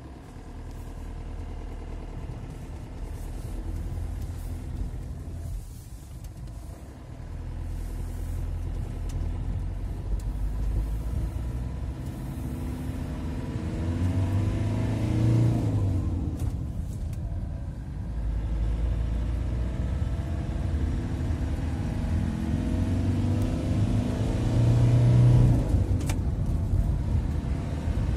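Fiat Ducato 2.5 TDI four-cylinder turbodiesel engine heard from inside the cab while driving, pulling up through the gears. The engine note rises, then drops back briefly at gear changes about six and seventeen seconds in.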